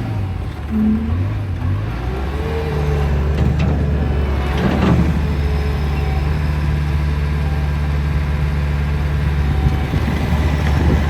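Bobcat T-590 skid steer's diesel engine running steadily under work, its pitch shifting in the first couple of seconds, with a brief clatter about five seconds in.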